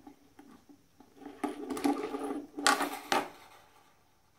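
Slinky Dog toy being handled and laid down on a tabletop: a run of clattering clicks and knocks from its plastic body, the loudest knock a little past halfway.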